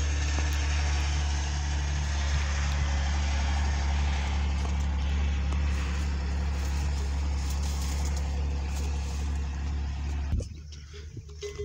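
A motor engine running steadily with a deep, even hum that cuts off abruptly about ten seconds in, leaving quieter sounds.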